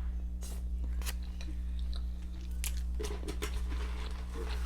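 Close-miked chewing: a person eating with mouth open, with irregular wet clicks and smacks, over a steady low hum.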